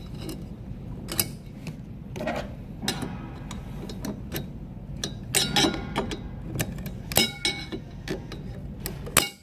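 Irregular metallic clicks and clinks, some ringing briefly, as a snap ring is worked into its groove in a transmission reverse input clutch drum to lock the clutch pack and backing plate in place. The clicking cuts off suddenly near the end.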